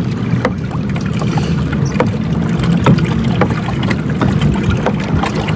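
Plastic kayak moving across a lake: a steady low rush of water and wind, with irregular small splashes and knocks against the hull.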